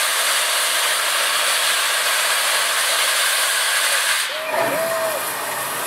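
Steam locomotive 2248, a 4-6-0 ten-wheeler, venting steam from its open cylinder cocks: a loud, steady hiss that cuts off suddenly about four seconds in.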